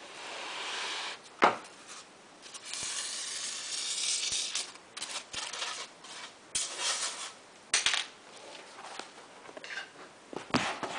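A toothpick scratching along a sheet of EVA foam as it traces around the edge of a styrofoam disc, in long scraping strokes. There is a sharp knock about a second and a half in, and a few clacks of things being handled near the end.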